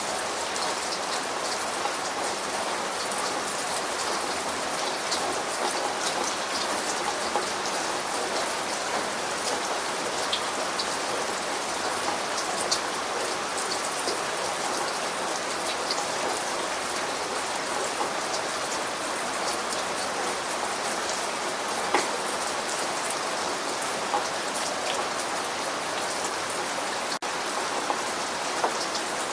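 Steady rain falling, a dense even hiss scattered with the sharp ticks of single drops striking a surface.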